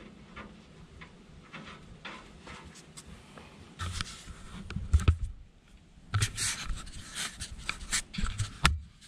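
Close rustling and scraping near the microphone, with a string of sharp knocks and clicks in the second half: clothing, boots and hands against the steel of a Cat 953C track loader as a person climbs up onto it.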